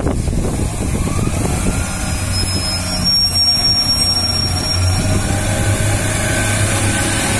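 Class 144 Pacer diesel multiple unit's underfloor diesel engine working hard as the train pulls away from the platform, a steady low drone with tones climbing in pitch as it picks up speed. A thin high whistle sounds for about two seconds partway through.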